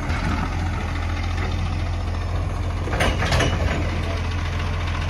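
Automated side-loader recycling truck's diesel engine idling with a steady low hum. About three seconds in comes a brief loud clatter with a hiss.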